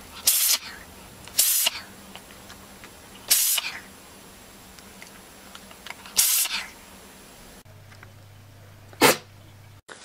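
A cat sneezing four times, each a short, sharp burst of air a second or two apart. Near the end, after a change of background, comes one more sharp sneeze.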